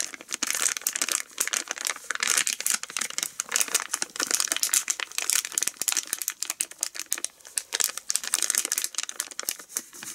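Plastic pouch of a gel cleaner crinkling and crackling as it is squeezed and worked to get the sticky gel out, a dense run of sharp crackles.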